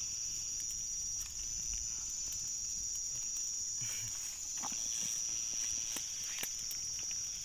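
Night insect chorus, a steady high-pitched trill that does not let up, with a few faint clicks and knocks now and then.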